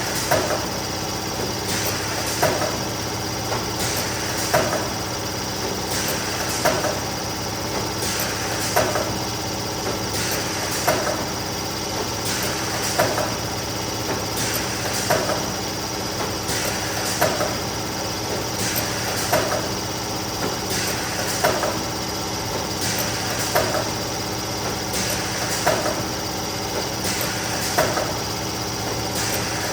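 Neoram 540 hot laminating machine running steadily with a motor hum, with a short clack about every two seconds as sheets go through in a continuous run.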